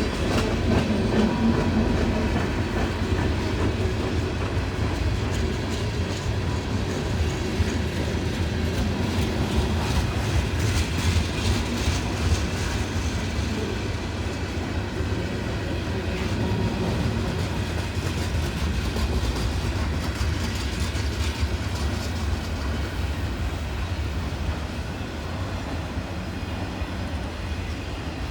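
Freight train cars rolling past on the rails: a continuous low rumble with wheels clacking over the rail joints, easing slightly near the end.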